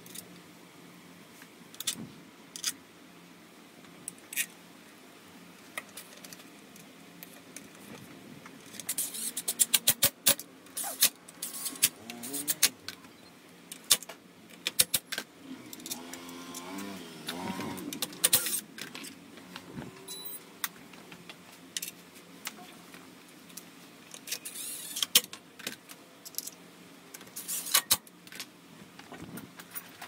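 Metallic clinks, knocks and rattles of hand tools and bolts as the aluminium CVT drive-belt cover is fitted back onto a Honda ADV350 scooter, with quick runs of clicks about ten seconds in and again near the end.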